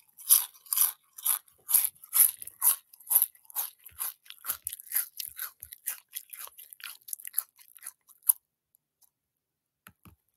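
Cartoon eating sound effect: a rapid run of crunching, chewing bites, about two or three a second, that stops abruptly a little past eight seconds in.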